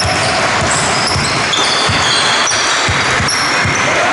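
Basketball dribbled on a wooden sports-hall floor, thudding about twice a second, with basketball shoes squeaking briefly on the floor.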